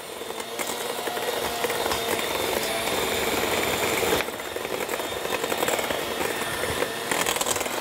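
Electric hand mixer running steadily, its beaters turning in a stainless steel bowl as they beat butter, sugar and eggs into a smooth batter. There is a brief dip about four seconds in.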